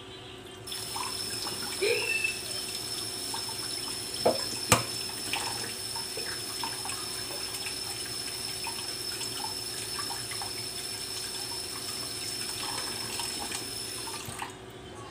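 Kitchen tap running into a small pot of boiled eggs in a stainless steel sink. It is turned on about a second in and off near the end. A few knocks and clicks come as the eggs are handled under the stream, the sharpest about five seconds in.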